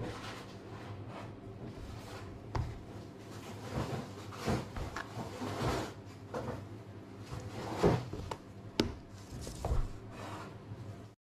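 Handling of a plastic food-storage box with its lid opened, then a metal spoon scooping dry white granules and tipping them into a ceramic bowl: a string of irregular scrapes, rubs and light clicks, with the sharpest clicks about eight and nine seconds in. The sound cuts off abruptly near the end.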